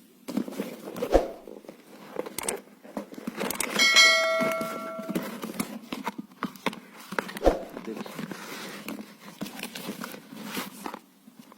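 A parcel being unboxed by hand: packaging rustling and tearing, with scattered clicks and two heavier knocks. About four seconds in, a bell-like ringing tone lasts about a second.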